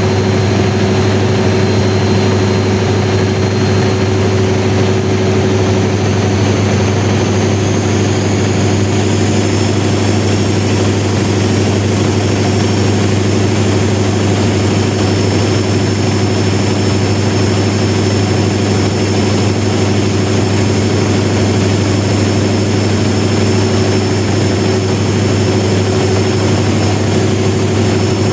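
1000 kW diesel generator set running steadily with a deep, even drone. A faint high whine sits above it and shifts in pitch about a third of the way in.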